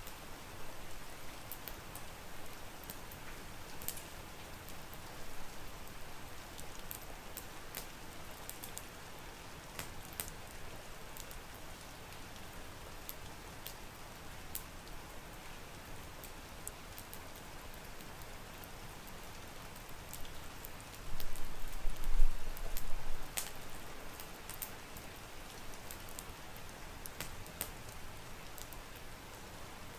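Steady rain with scattered sharp drip ticks. A low rumble swells for about two seconds past the middle.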